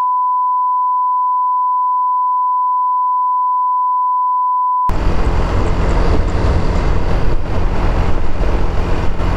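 A steady, high-pitched censor bleep that replaces all other sound for about five seconds, then cuts off suddenly. After it comes wind buffeting the microphone and the road and engine noise of a moving motor scooter.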